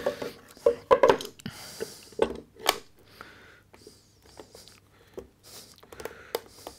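Light knocks and clicks of wooden box parts and a metal clamp being handled as a small box's sides and panels are pressed together at a corner joint, with a brief scrape about one and a half seconds in.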